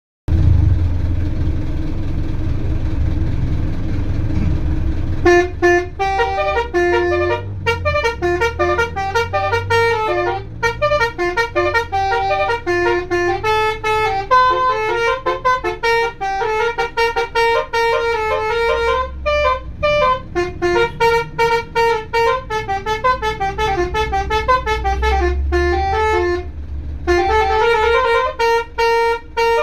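Basuri-style musical air horn driven by a DAV horn module, playing a quick tune of short pitched notes with a brief pause near the end. A low rumble comes before the tune starts, about five seconds in.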